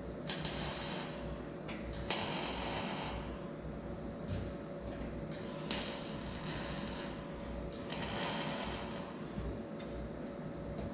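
Arc welding on a steel frame: four short bursts of crackling sizzle, each about a second long, over a steady hum.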